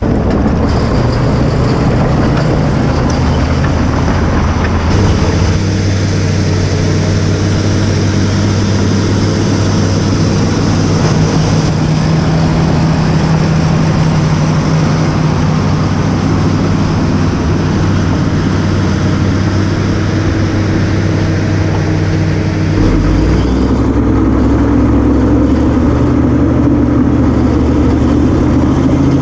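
Caterpillar bulldozer's diesel engine running steadily under work, with a high hiss over it. About 23 seconds in the hiss stops and the engine note changes to a deeper, heavier one.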